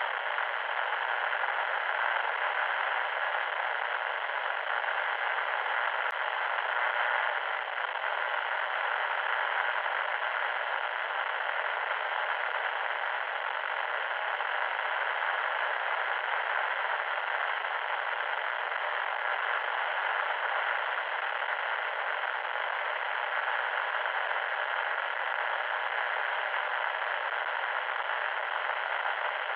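Loud static noise: a steady, even hiss with no deep rumble and no tones, unchanging throughout.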